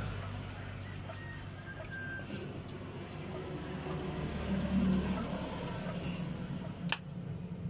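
A chick peeping over and over, short falling cheeps about three a second, over a low steady hum. A single sharp click sounds near the end.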